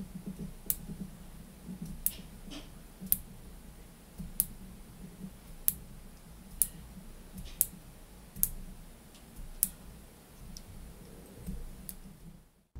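Stainless-steel bidirectional 24-hour GMT bezel of a San Martin SN0109 being turned clockwise one notch at a time. Each notch gives a crisp, high-pitched click, about one a second.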